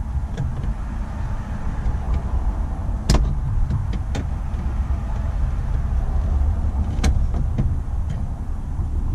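Needle-nose pliers clicking against a small dashboard screw and the trim around it, a few sharp clicks, over a steady low rumble.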